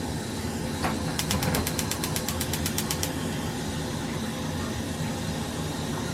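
Gas stove igniter clicking rapidly, about ten even clicks a second for roughly two seconds, over a steady low hum.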